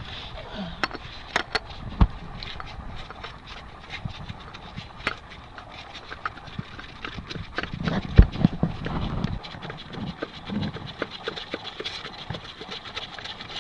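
Scattered clicks, knocks and handling noise as a new oil filter is handled and threaded on by hand, with a heavier thump about two seconds in and another about eight seconds in.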